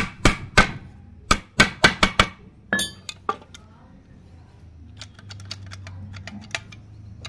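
Hammer driving a nail pin into the teak wooden stock to lock the homemade speargun's trigger in place, in quick blows about three a second, in two short runs. A ringing metallic clink follows, then only faint light taps and clicks.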